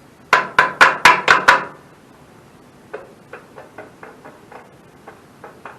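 Six quick, loud hammer blows on metal, about four a second, each with a short ring, knocking on old bolts that are to be replaced anyway. About a second and a half later comes a run of much lighter, irregular metallic clicks.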